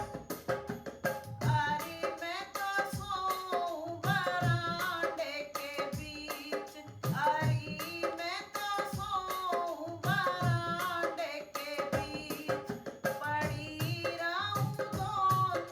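Hindi folk song: a hand drum keeps a steady beat, and a voice comes in singing the melody about a second and a half in.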